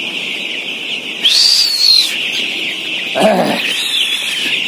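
Dense chorus of many six-day-old chicks peeping continuously. Two louder drawn-out peeps rise and fall over it, one about a second in and one near the end.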